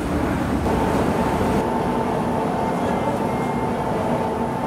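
Hong Kong MTR metro train running through an underground station: a steady rumble, joined about half a second in by a steady whine.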